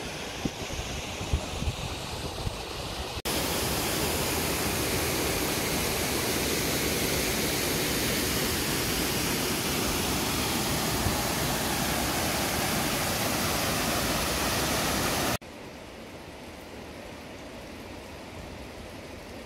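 River water rushing over rocks in rapids, a loud steady wash of noise that comes in suddenly about three seconds in and cuts off abruptly about fifteen seconds in. Quieter outdoor noise comes before and after.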